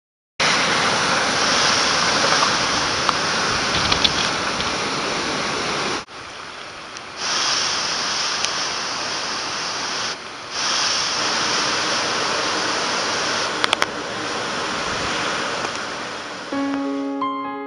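Storm wind and heavy rain, a loud steady rush of noise that drops away briefly twice. Piano music comes in near the end.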